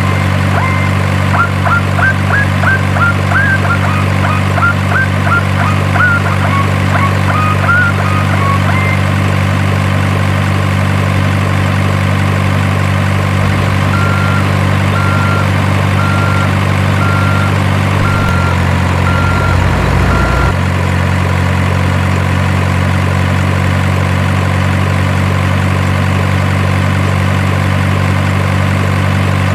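Diesel-truck engine idle sound from a miniature RC truck, running very evenly throughout. A regular beep about once a second plays for several seconds around the middle. Short high chirps are scattered through the first third.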